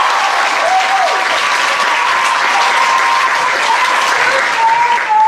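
Live theatre audience applauding in a dense, steady wash, with voices calling out and cheering over it and a rising whoop near the end.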